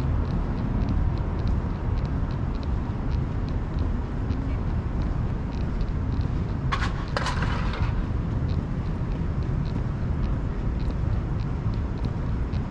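Outdoor city street ambience: a steady low rumble of distant traffic and air, with faint regular ticks. About seven seconds in comes a short, sharp clatter lasting about a second.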